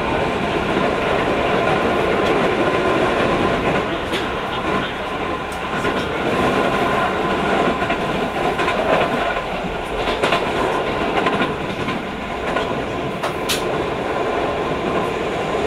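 Keio 5000 series electric train running, heard from inside a passenger car: steady wheel-on-rail running noise with a few sharp clicks scattered through it.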